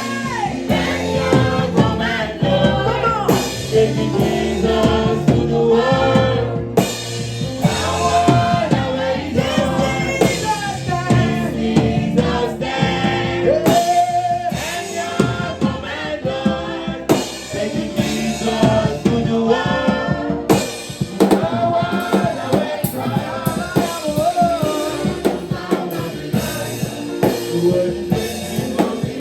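Gospel worship music: voices singing a melody over a drum kit and other instruments.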